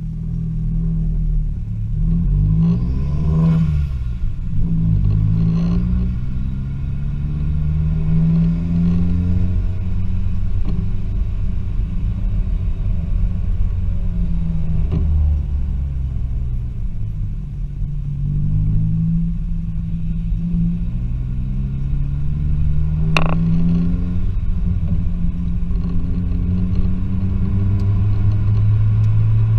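Remapped Vauxhall Z20LET 2.0 turbocharged four-cylinder engine and exhaust heard from inside the cab, pulling away and accelerating through the gears: its pitch climbs several times and breaks off at each gear change, then holds steadier near the end. One sharp crack comes at a gear change about 23 seconds in.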